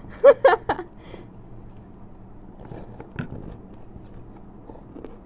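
Noodles being chewed close to the microphone, quiet and wet. A short laugh sounds in the first second, and a brief click about three seconds in.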